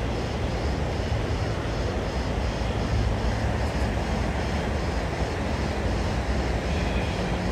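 Steady low outdoor rumble, with a faint high-pitched pulsing repeating a few times a second above it.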